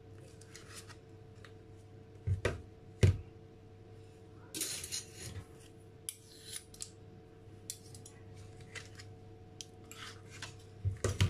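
Metal spoon scooping butter from a tub and knocking it off into a stainless steel saucepan of milk: two sharp knocks a couple of seconds in, a scraping stretch about halfway, then scattered clicks and more knocks near the end.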